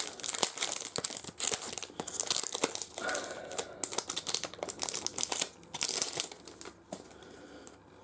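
Trading-card pack wrappers crinkling and tearing as packs are opened and cards handled. The crinkling comes in quick, irregular bursts that die away near the end.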